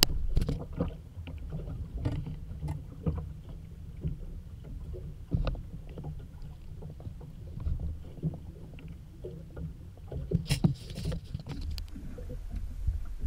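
Water slapping against the hull of a drifting fibreglass skiff, with a low wind rumble on the microphone and scattered small knocks on the boat.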